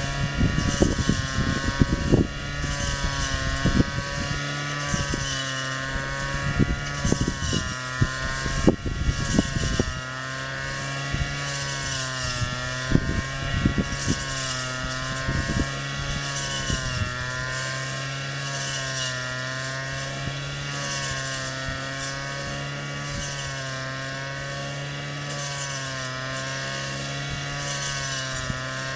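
Honda GX35 four-stroke brush cutter engine running steadily at working speed, its pitch wavering slightly up and down. Bursts of sharp clicks and knocks come through the first third and again around the middle.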